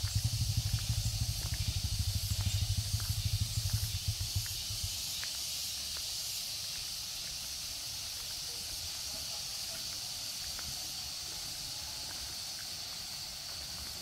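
Steady high-pitched drone of insects in the countryside, with a low pulsing rumble underneath for the first four to five seconds that then fades away.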